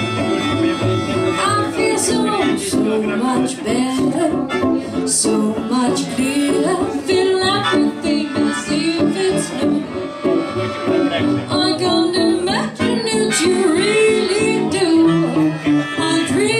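A small live band playing a song: a woman singing over guitar and keyboard accompaniment.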